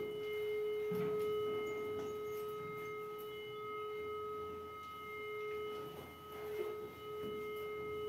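Handheld cattle metal detector giving a steady electronic tone as it is swept along a cow's belly in a scan for swallowed metal. Faint rustling can be heard underneath.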